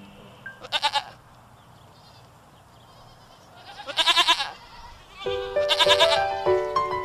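Sheep bleating: three separate quavering bleats, the first about a second in, then two more later, with quiet between the first two. Background music with steady notes comes in about three-quarters of the way through.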